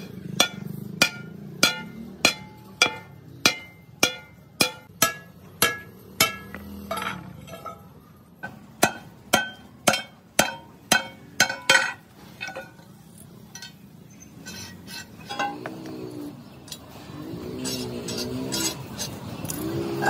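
Hand hammer striking a bent sheet-steel channel piece, each blow a sharp ringing clink, about two a second. The blows pause briefly around seven seconds in and stop about twelve seconds in.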